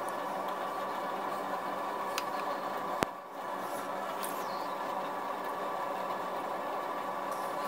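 Small carving gouge paring into a wooden gunstock by hand: faint short scraping cuts over a steady background hum, with one sharp click about three seconds in.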